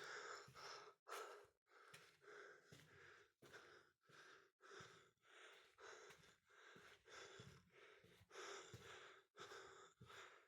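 Near silence, with faint soft sounds repeating about every half second to a second.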